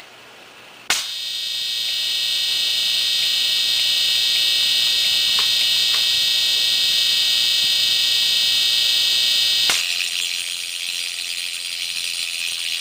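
Opened hard drive spinning up with a click about a second in: the spindle motor and bare platter give a loud, steady, high-pitched whine that builds over a couple of seconds and then holds. A second click near the end shifts the pitch of the whine.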